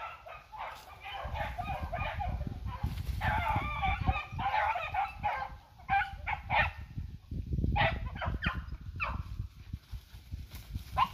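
A pack of beagles baying on a rabbit's track, many short cries overlapping one another, with wind rumbling on the microphone.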